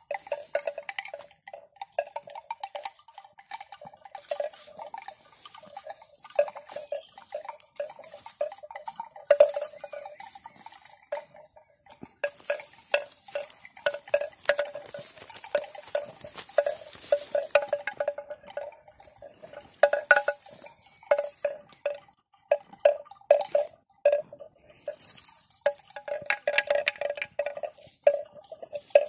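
A bell or chime clonking irregularly, many quick strokes at the same hollow pitch, with a high hiss rising and falling now and then.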